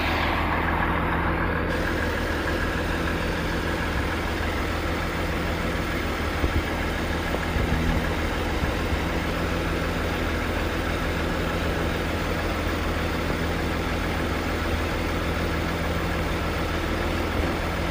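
Truck engine running steadily at an even, low speed, with no revving.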